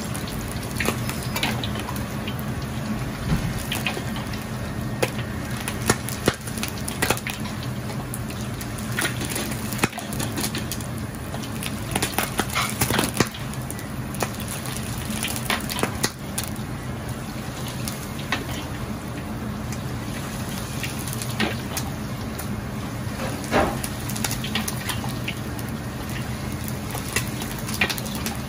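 Hot oil ladled from a wok over a slab of braised pork belly on a perforated skimmer, pouring and splashing back into the wok with scattered crackles and pops, over a steady low hum.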